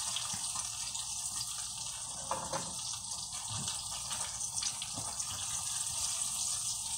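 Battered cauliflower deep-frying in hot oil in a Dutch oven: a steady bubbling sizzle, with a few faint taps of a wire strainer against the pot.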